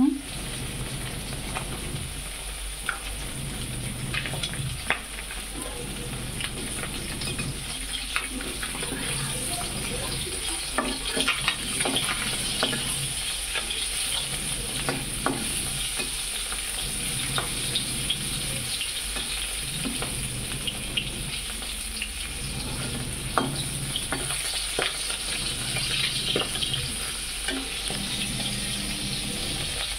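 Fish pieces sizzling steadily as they shallow-fry in hot mustard oil in a kadhai. A metal spatula scrapes and clicks against the pan now and then as the pieces are turned.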